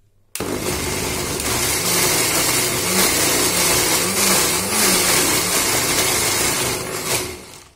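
Electric mixer grinder running on high, grinding soaked sabudana (sago pearls) and a little water into a paste. It switches on abruptly about a third of a second in, runs loud and steady, and winds down near the end.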